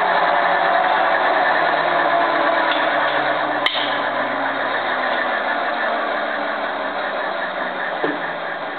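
Overhauled Lycoming T53-L-13B gas turbine winding down, its whine slowly falling in pitch and its noise gradually fading. A single sharp click comes about a third of the way through, and a small knock near the end.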